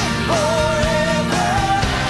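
Pop-rock song: a singer holds a long note with vibrato, then moves up to a second held note, over the backing music.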